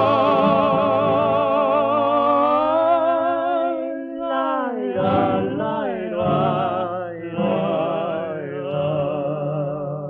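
Male vocal duo singing the final phrase of a tango-song on a 1933 Victor record: a long held note with heavy vibrato, then a few shorter notes, over guitar accompaniment, the song dying away at the end.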